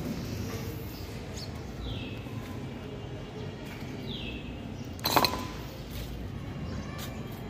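A single sharp clink about five seconds in, the loudest sound, over a low steady rumble. Earlier come two short falling chirps from a bird, about two seconds apart.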